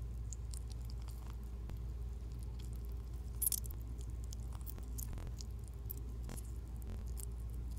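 Lemon pulp squished and torn apart between fingers close to the microphone: small wet crackles and pops as the juice sacs burst, with a louder crackle about three and a half seconds in. A steady low hum runs underneath.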